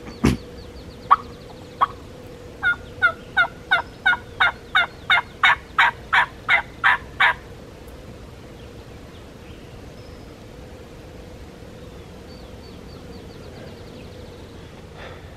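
Turkey yelping: a series of about fourteen short, evenly spaced yelps, roughly three a second, getting louder as the series goes on, after two single yelps.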